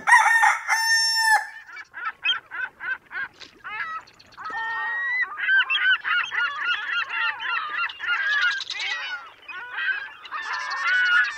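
A flock of birds calling: one long held call about half a second in, then many short, overlapping honking calls that start sparse and become a dense, continuous chorus from about halfway through.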